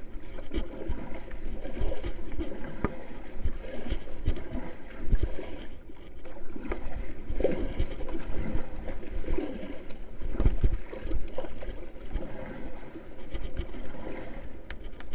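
Sea water sloshing and splashing around a large board afloat, with wind buffeting the microphone in uneven low rumbles and a few short knocks.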